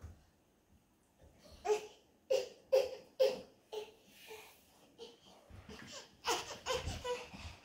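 Babies babbling and giving laughing squeals: a run of short vocal bursts about two seconds in, then another cluster near the end.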